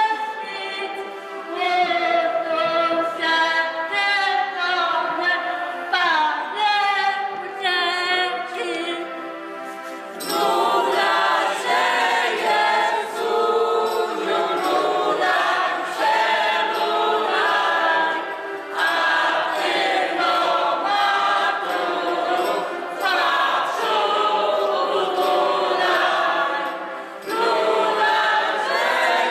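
A choir singing. About ten seconds in, the singing becomes fuller and steadier as more voices come in.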